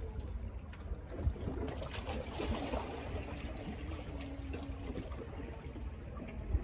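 Sea water lapping and trickling against shore rocks, over a steady low rumble.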